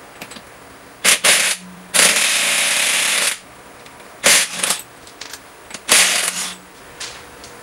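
Impact wrench hammering lug nuts off a truck's front wheel in four bursts, the second and longest lasting over a second.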